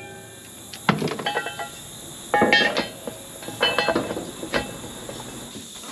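The air-cleaner cover of a John Deere 9500 combine being fitted back over a new air filter and its centre wing nut done up: a few clusters of metal clinks and knocks, some ringing briefly.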